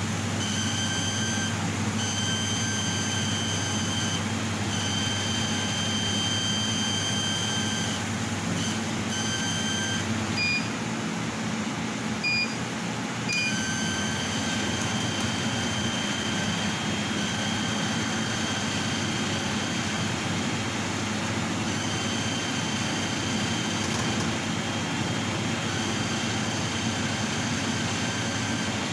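Bao Yuan Tong CNC laser cutting machine running while cutting an acrylic sheet: a steady noise of air and extraction under a high whine that cuts out and back in several times. Three short beeps sound in the middle.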